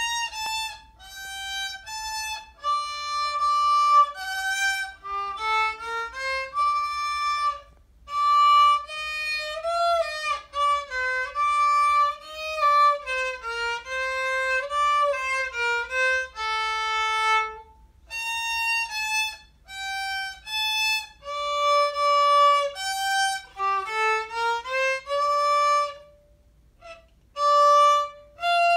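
Solo violin, bowed, playing a melody one note at a time, with brief pauses between phrases and a few quick rising runs of notes.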